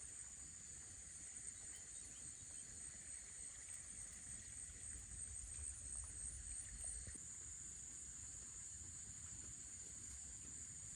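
Steady, high-pitched chorus of insects such as crickets or cicadas, its pitch shifting slightly about seven seconds in, over a faint low rumble.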